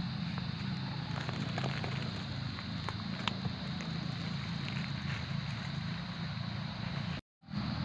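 A steady low rumble, with a few light crinkles and clicks in the first few seconds from a plastic fruit bag being handled around a hanging bitter gourd. The sound drops out for a moment near the end.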